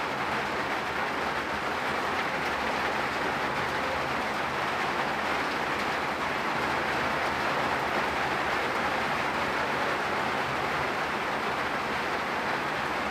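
Rain falling steadily, an even hiss that holds the same level throughout.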